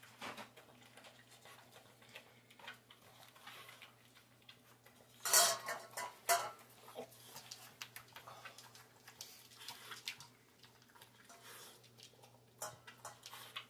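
Dog eating from a stainless steel bowl: its muzzle knocks the metal bowl around, making scattered clinks and clanks, with two louder ringing clanks about five and six seconds in.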